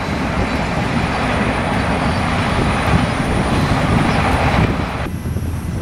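Train running on the track: a steady, noisy rumble spread from low to high pitches, whose higher part cuts off abruptly about five seconds in.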